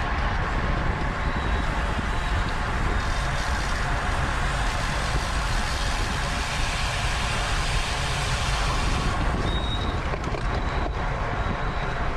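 Steady wind rushing over a racing cyclist's camera microphone at race speed, with tyre and road noise underneath.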